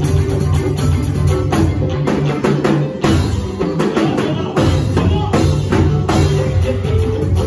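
Live band music led by a drum kit. About two and a half seconds in, the bass drops out and the drums play on their own for about two seconds, then the full band comes back in.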